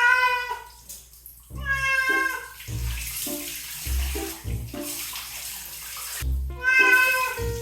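A cat meowing three times during a bath, each call long and slightly falling at the end, over background music with a steady low beat.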